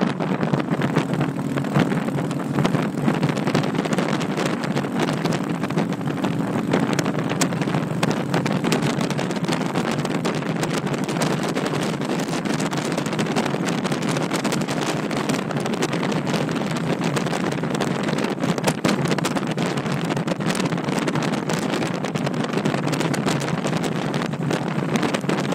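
Wind rushing over the microphone of a camera mounted on a touring motorcycle at road speed, over the steady run of the bike's engine cruising without gear changes or revving.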